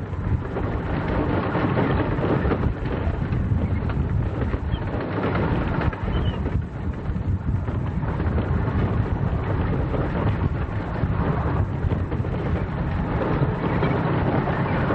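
Wind buffeting the microphone, a steady low rumble with a hiss on top.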